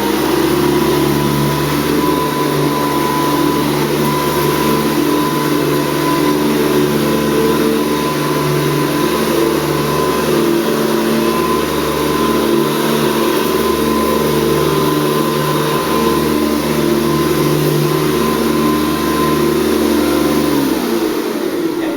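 Hoover Convertible upright vacuum cleaner motor running steadily with a thin high whine, then switched off and winding down, its pitch falling, about a second before the end.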